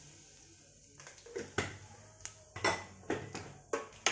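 Steel spoon stirring spices in butter in a kadai, scraping and clinking against the pan in a string of sharp knocks from about a second in, over a faint sizzle of the hot fat.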